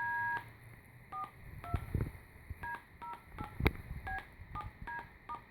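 Tone generator giving short two-tone, touch-tone-like beeps, about ten of them at uneven intervals: each press of a momentary switch produces only a brief pulse of tone. A few sharp knocks from the switch are heard between beeps.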